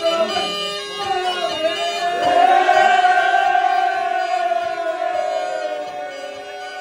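Horon dance music in the Black Sea folk style, a quick melody over a steady drone. From about two seconds in, the dancers join in a long group shout that slowly falls in pitch.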